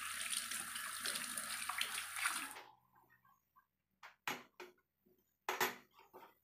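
Kitchen tap running in a steady stream, shut off sharply about two and a half seconds in; a few short light knocks follow.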